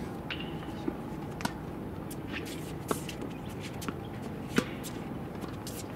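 Tennis balls bouncing on a hard court and being struck by rackets: a few sharp, separate pops spread through, the loudest about four and a half seconds in.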